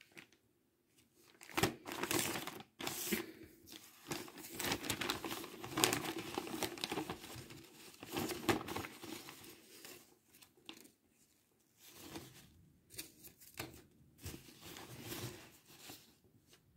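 A paper tissue crinkling and rustling as it is handled and unfolded by hand, in irregular bursts with short pauses.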